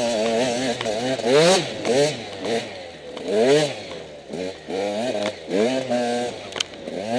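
Enduro motorcycle engine revving up and falling back over and over as the throttle is worked, about once a second, with a few sharp knocks and rattles in between.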